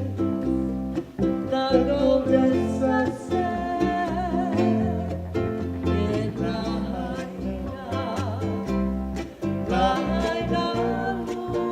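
Band music with plucked guitars over a steady bass line and a wavering lead melody line, in the instrumental stretch of a Hawaiian-style song.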